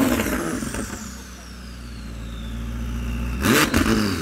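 McLaren 600LT's twin-turbo V8 with an aftermarket exhaust, a rev dying away into a low idle while a thin high whine slides down in pitch. A quick blip of revs comes in near the end.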